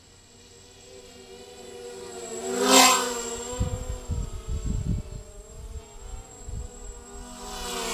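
Emax Nighthawk 250 racing quadcopter's brushless motors and props spinning while it sits on the ground, a steady pitched hum that grows louder. It rises briefly to its loudest just before three seconds in. Then low rumbling gusts of prop wash buffet the microphone.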